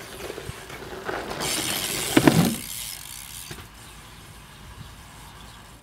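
Rushing, rattling noise that swells over about a second and peaks in a clattering impact about two seconds in, then dies down to a low background.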